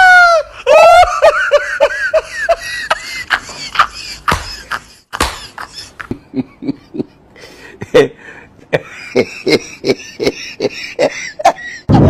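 A high, wailing voice gliding in pitch at the start, then laughter in short repeated bursts of ha-ha pulses.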